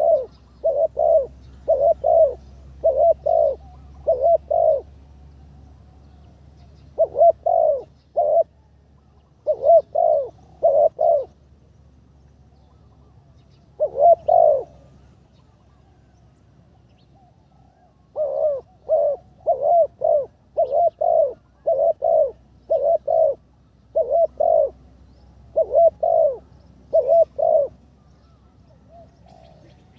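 Spotted dove cooing: repeated phrases of short coo notes, several in quick succession, with pauses of a second or more between phrases and a longer pause a little past the middle. The bird is a decoy dove in training.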